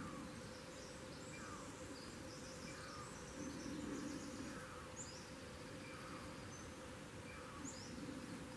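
Faint forest ambience: a steady buzzing hum with scattered high bird chirps and twitters.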